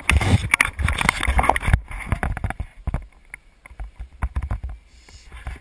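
Handling noise from an action camera in its waterproof housing: a neoprene-gloved hand rubbing and knocking on the case. Dense rustling and knocks for the first couple of seconds, then scattered knocks.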